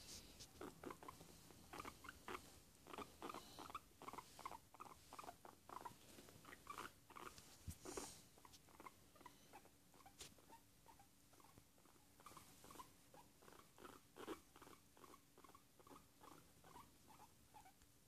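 Guinea pig making soft contented sounds while being stroked: a faint, quick series of short notes, several a second, thinning out in the second half.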